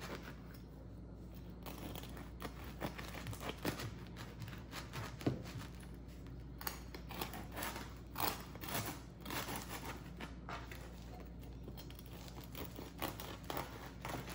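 A new bread knife sawing back and forth through the hard crust of a freshly baked sourdough loaf, in a series of short scraping strokes. The strokes come more often in the second half as the blade works through.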